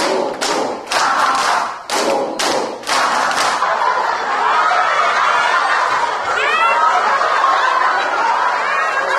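A crowd clapping together in rhythm for about three seconds, then breaking into loud group laughter that carries on: the deliberate laughter of a laughter yoga exercise.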